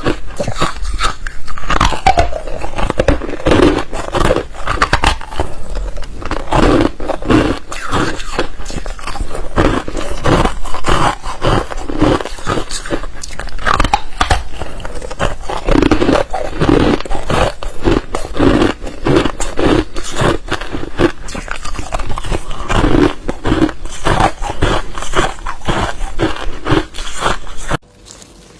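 Ice being bitten and chewed close to the microphone: loud, dense crunches one after another, stopping about a second before the end.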